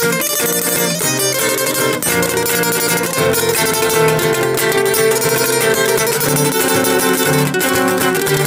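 Balalaika and acoustic guitar playing an instrumental passage of Roma-style folk music together, with steady plucking and strumming and no singing.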